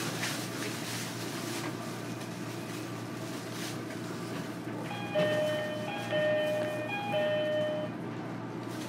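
Door chime aboard a JR Kyushu 305 series EMU: a falling two-note ding-dong, sounded three times over the steady hum of the car.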